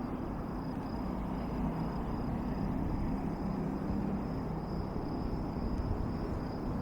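Insects trilling in one steady, high, even-pitched chorus over a low continuous rumble.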